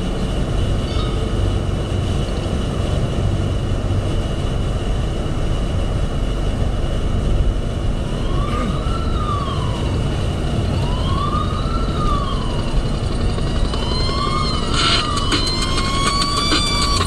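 Steady engine, road and wind noise inside a Renault Mégane cruising at about 140 km/h. From about halfway through, a siren-like wailing tone rises and falls in slow arches, repeating every two to three seconds.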